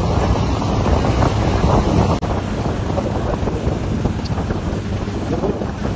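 Heavy off-road truck engine running as it ploughs through deep muddy floodwater, with water sloshing and strong wind buffeting the microphone. A brief dropout about two seconds in.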